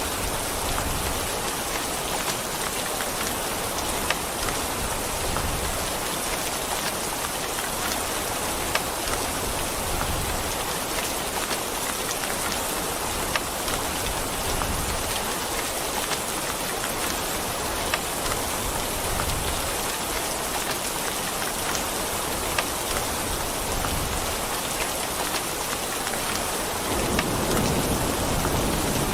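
Steady heavy rain, a dense even hiss with scattered sharper drop impacts. Near the end a low rumble of thunder starts to build.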